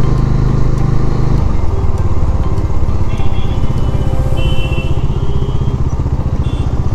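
Motorcycle engine running while the bike rides along in traffic, its note changing about a second and a half in.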